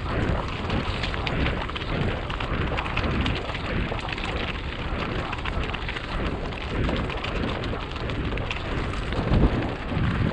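Mountain bike running fast over loose rocky scree: tyres crunching and the bike rattling with a dense crackle of small clicks, with wind rumbling on the microphone. A harder knock about nine and a half seconds in.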